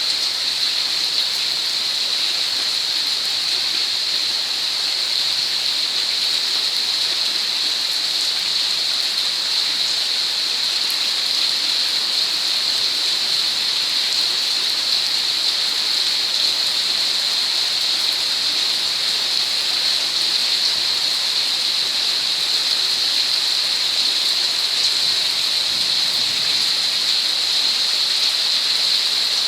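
Rain falling steadily: a dense, even hiss that does not change.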